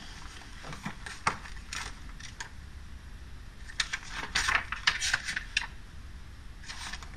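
Pages of a paperback book being leafed through and handled: scattered soft rustles and clicks, thickest for a couple of seconds in the middle, over a faint low hum.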